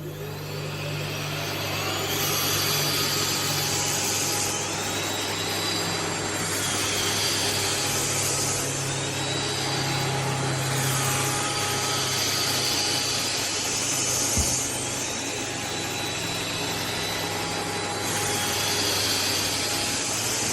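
Philips Series 9000 bagless vacuum cleaner starting up and running. It builds to full power over the first two seconds, then holds a steady motor drone while its hiss swells and eases every two seconds or so.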